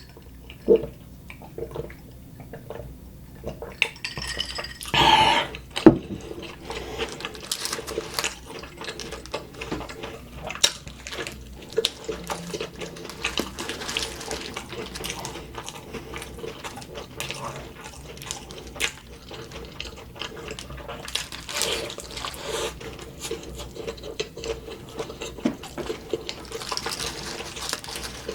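A person chewing food close to the microphone, with many small wet mouth clicks and smacks, and a louder rustling burst about five seconds in.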